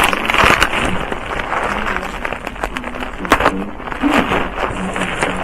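Bubble wrap and plastic packaging crinkling and crackling as it is handled, with a few sharp clicks.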